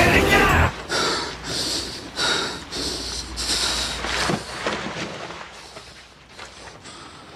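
A man's heavy, ragged breathing: short hissy gasps about every half second that grow fainter. Before it, the song cuts off abruptly just under a second in.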